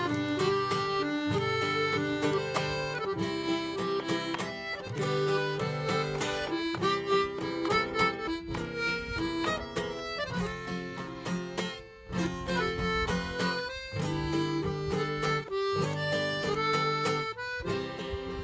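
Accordion playing a held-note melody over a strummed acoustic guitar: an instrumental passage of a sertanejo modão, with a brief drop in level about two-thirds of the way through.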